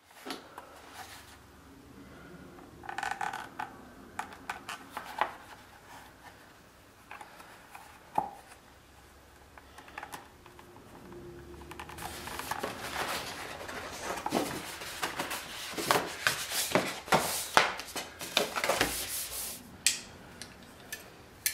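Handling noises on a workbench: rubbing, rustling and scratching with scattered sharp clicks and taps. They are sparse at first and grow busier and louder in the second half.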